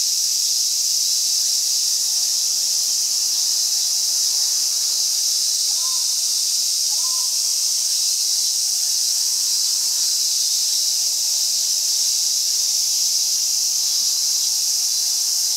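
A dense chorus of summer cicadas: a steady, high-pitched buzz that does not let up. A few short chirps come through it, about six and seven seconds in and again near the end.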